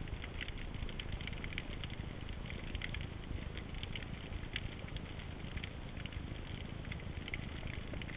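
Shallow-sea underwater ambience heard through a camera housing: a dense crackle of many small scattered clicks over a low rumble.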